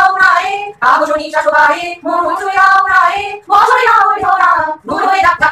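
A voice singing a melody in long held notes, in short phrases with brief breaths between them.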